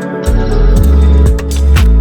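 Background music: sustained keyboard or organ-like chords over a heavy bass with a regular beat.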